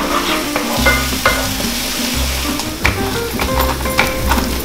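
Walnuts being crushed under a wooden rolling pin on a cutting board, with a few sharp cracks. Onions sizzle steadily in a frying pan throughout, under background music.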